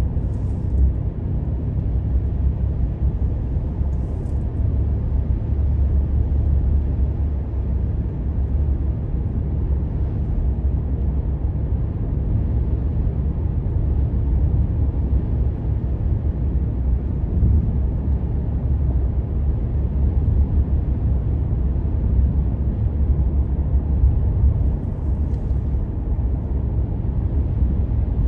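Steady low rumble of a car driving at road speed, heard from inside the cabin: engine and tyre noise on the road.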